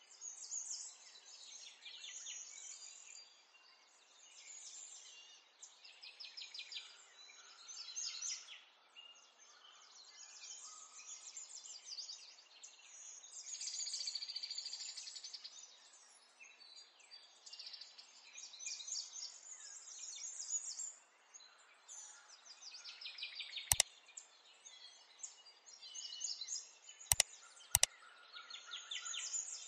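Birds chirping and twittering in the background in quick, busy phrases, with three sharp clicks near the end: one, then a quick pair.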